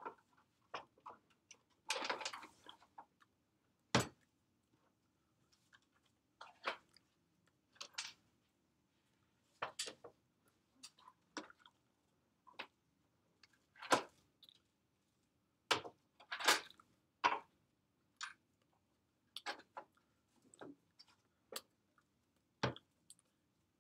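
Irregular soft clicks and smacks from a person signing: mouth noises and hands touching, with a longer rustle about two seconds in.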